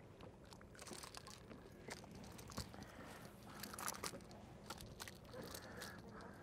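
Faint scattered clicks and light scrapes of fishing tackle as a small fish is reeled in and swung up out of the water, with a cluster of clicks about four seconds in, over a low steady background hiss.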